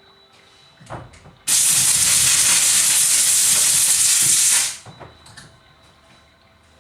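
A pressurised cleaning jet hisses steadily for about three seconds, starting and stopping abruptly, as the chainsaw's small oil pump is cleaned. A few light knocks come just before it.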